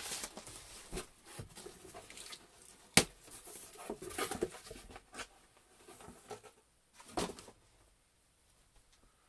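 Package being opened and a jersey pulled out: irregular rustling and crinkling of packaging, with one sharp snap about three seconds in.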